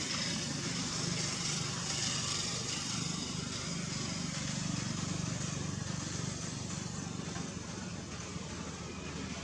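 A steady low mechanical hum under an even hiss, with no distinct events.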